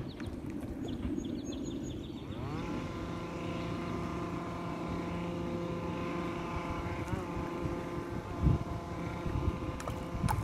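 A boat motor running with a steady, pitched hum that rises in pitch about two seconds in and then holds. A low thump about eight and a half seconds in.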